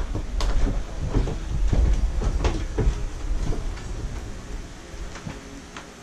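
Irregular knocks and clatter over a low rumble of handling and movement, from a person moving about with a plastic laundry basket. The sound grows quieter near the end.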